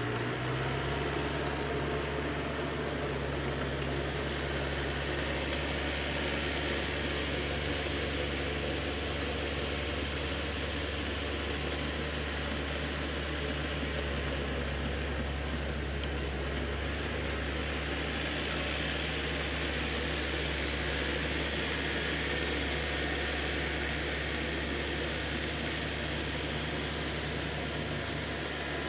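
Small tractor's engine running steadily with a low hum as it tills a flooded rice paddy.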